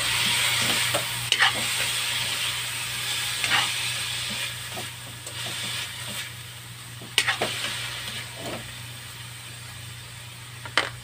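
Long beans and diced pork sizzling in a steel wok as a metal spatula stirs them, with a few sharp clanks of the spatula against the wok. The sizzle eases off toward the end.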